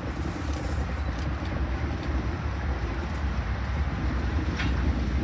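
CSX diesel freight locomotives passing, a steady low engine rumble mixed with the noise of wheels rolling on the rails.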